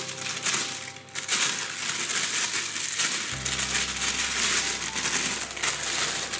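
Plastic freezer bag crinkling and rustling as a ball of pastry dough is handled inside it, over background music with steady low notes.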